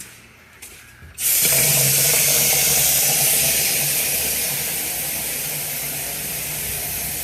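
Water tap opened about a second in, then running steadily with a loud hiss as it draws hot water through a tankless water heater.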